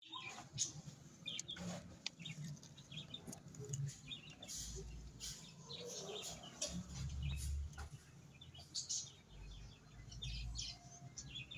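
Birds chirping and calling in short, scattered notes, with a low rumble coming and going underneath.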